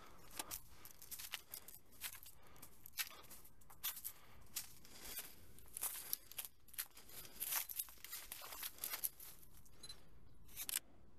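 Footsteps crunching through dry leaf litter on a dirt trail, an uneven run of crackling steps that pauses briefly near the end.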